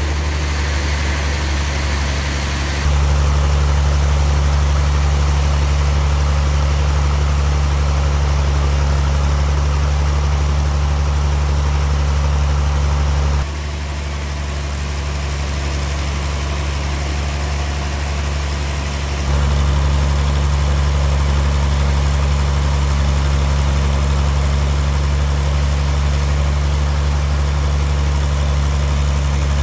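A heavy engine running steadily with a deep hum. It steps louder about three seconds in, drops back near the middle, and rises again about two-thirds of the way through.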